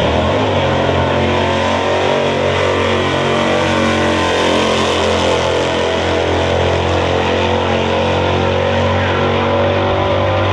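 Naturally aspirated engine of an orange second-generation Chevrolet Camaro drag car launching on the green light and running at full throttle down the quarter-mile strip, a loud, steady engine note throughout.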